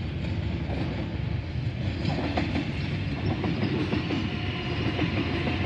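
Sydney Trains Waratah electric double-deck train running past close by, with a steady rumble of its wheels on the rails.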